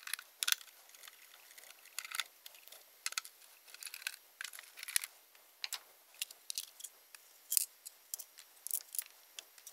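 Faint, irregular small clicks and scrapes of a screwdriver backing out the faceplate screws of an LED aquarium light, and of the plastic faceplate being handled and lifted off.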